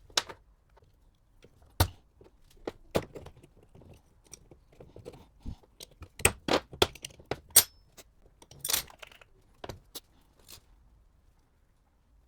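Small metal parts and hand tools clinking and knocking together in irregular sharp strikes, with a short metallic rattle or scrape about three-quarters of the way through, typical of a starter motor being worked on by hand.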